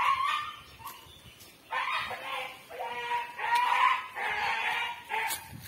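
A dog whining, a string of drawn-out, plaintive cries starting about two seconds in, after a short cry at the very start.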